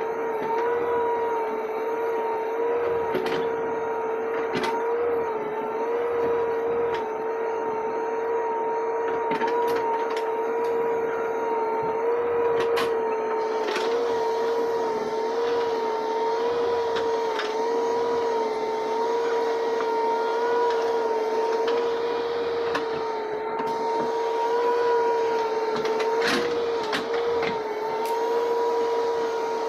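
JCB Eco Xpert backhoe loader working, its running machinery giving a steady high-pitched whine that wavers slightly in pitch, with scattered short clicks and knocks.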